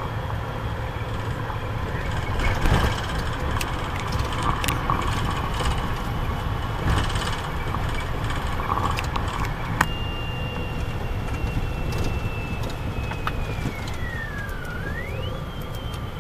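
Vehicle driving on a gravel road, heard from inside the cabin: a steady low rumble with scattered knocks and clicks. About ten seconds in, a thin high whistle starts; it slides down and then jumps back up near the end.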